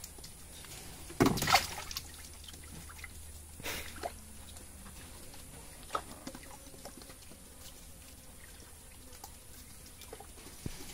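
Water splashing and dripping in a small pool where vervet monkeys are playing; the loudest splash comes about a second in, with a smaller one near four seconds.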